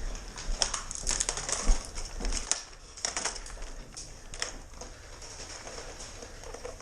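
Footsteps crunching and scuffing on a gritty floor, with irregular sharp clicks, as a player moves quickly toward an opponent.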